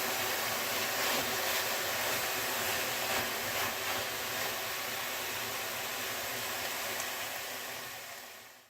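Meat frying in a hot pan: steady, intense sizzling of hot fat with occasional small pops and crackles, fading out in the last second.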